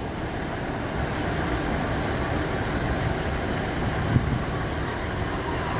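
Class 150 Sprinter diesel multiple unit standing at the platform with its engines idling, a steady low rumble.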